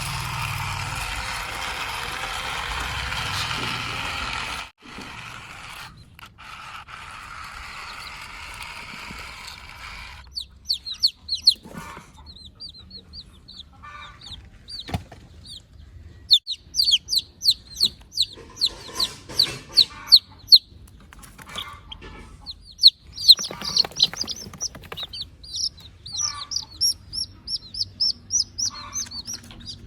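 A steady mechanical running noise for the first few seconds, then, from about a third of the way in, chickens calling: many quick high chirps in runs, mixed with lower clucks.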